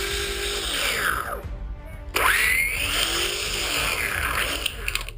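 Chainsaw running at high revs, falling off about a second and a half in, then revving back up with a rising whine.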